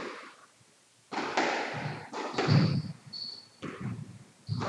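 Squash rally: sharp cracks of the ball being struck and hitting the court walls, with low thuds and two brief high shoe squeaks on the court floor in the middle.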